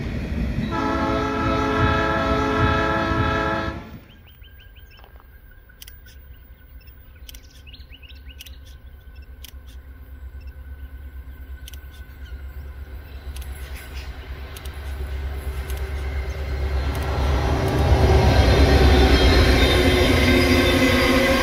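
Diesel locomotive horn sounding a held multi-tone chord for about four seconds. Then a diesel freight train drawing near, its low rumble growing until the container wagons roll past, loudest near the end.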